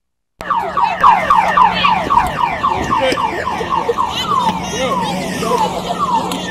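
Car alarm sounding a fast run of falling electronic chirps, starting suddenly about half a second in, about four a second at first and slowing toward the end, over a steady low hum.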